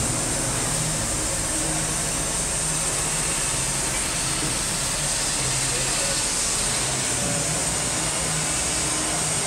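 Steady outdoor city noise with a low engine hum that shifts a little in pitch, from traffic or construction machinery.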